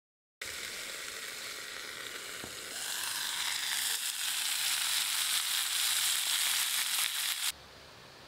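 Sausages sizzling in a frying pan over a portable gas stove, a steady hiss that grows louder about three seconds in and cuts off suddenly near the end.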